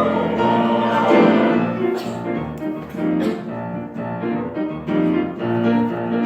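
Piano-led instrumental interlude of a gospel praise song: chords and melody notes played between sung lines, with no voices.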